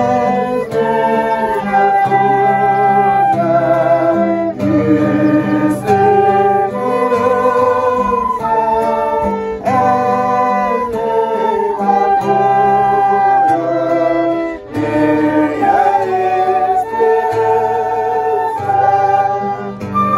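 A hymn played on two transverse flutes, a violin and an acoustic guitar, with voices singing along.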